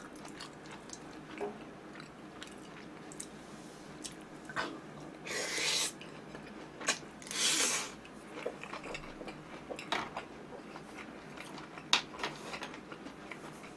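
A person eating instant noodles close to the microphone, with two loud slurps about five and seven seconds in. Between the slurps there is chewing with small scattered clicks.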